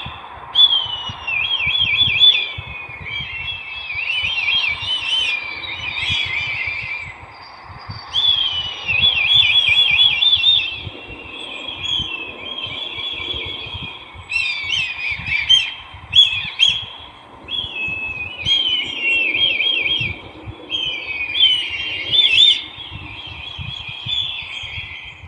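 Brahminy kite calling: quavering, wavering calls that slide down in pitch, given in bouts of a few seconds with short pauses between them.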